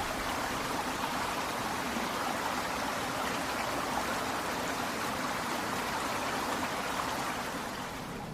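Steady rushing water, like a stream.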